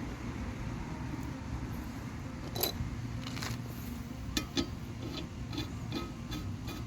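Light metallic clicks and clinks, a few a second from a little over two seconds in, over a steady low background rumble: hand tools working on the mower deck's blade bolts as the blades are taken off.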